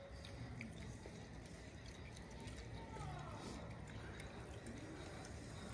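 Quiet eating sounds: a group eating rice and curry by hand, with faint squishes and small clicks against a low background.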